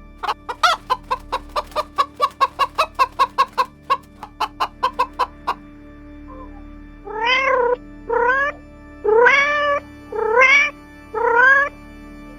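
A rapid series of short clucking clicks, about six a second, for the first half. Then a cat meows five times, each meow rising and then falling in pitch, over soft steady background music.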